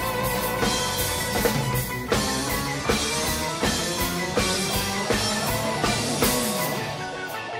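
Live rock band playing an instrumental passage with no vocals: a drum kit keeps a steady beat under electric guitars, bass and keyboards. Near the end a note slides down in the low end.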